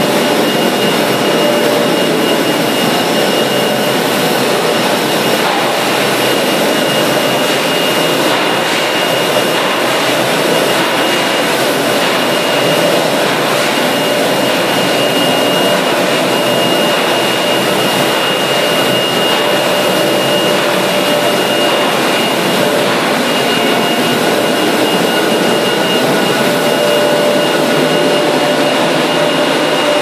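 Industrial forge furnace running: a loud, steady roar with a high whine and a lower hum held throughout.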